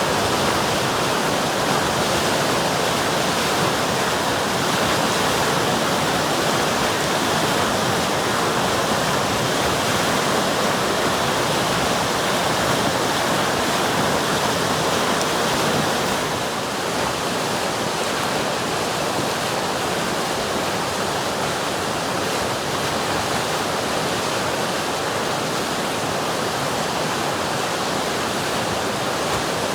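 River water rushing steadily, a continuous dense hiss of flowing water.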